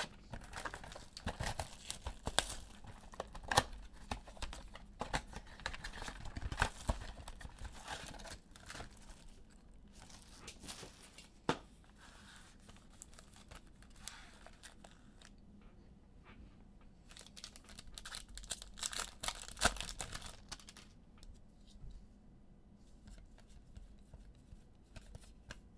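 Plastic wrap and foil packs of trading cards being torn open, with crinkling wrapper noise and cards being handled. The tearing and crinkling come in irregular spurts, busiest in the first third and again about three-quarters through, with a single sharp click near the middle.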